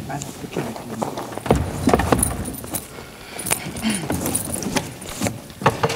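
Rummaging: scattered knocks, thumps and clatters of furniture and objects being pulled about and handled, with footsteps on a wooden stage floor.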